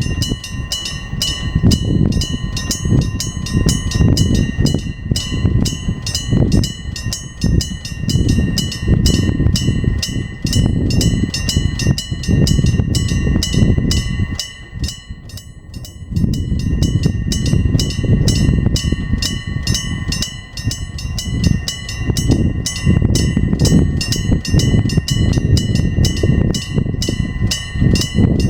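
Electric bell of a level-crossing warning signal ringing with rapid, evenly spaced strikes, over the low rumble of a passing train. The rumble dips briefly about halfway through.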